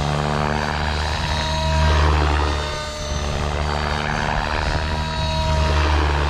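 Blade Fusion 550 electric R/C helicopter in flight: a steady whine from the rotors and the electric motor, swelling louder about two seconds in and again near the end as it manoeuvres.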